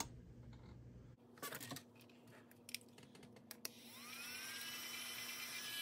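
A few light clicks and taps, then a small electric motor starts about four seconds in: its whine rises in pitch as it spins up and then runs steadily.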